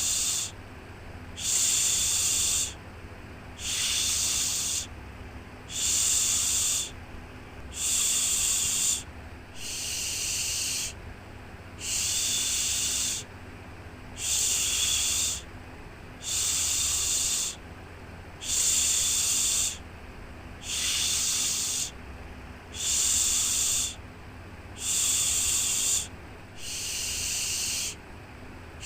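Rhythmic shushing, a long 'shhh' repeated about once every second and a half to two seconds, each one lasting about a second: a shush sound used to soothe a baby to sleep.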